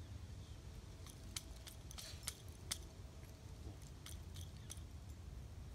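Faint, sharp metallic clicks and small rattles of a shotgun being handled, about a dozen of them from about a second in until near the end.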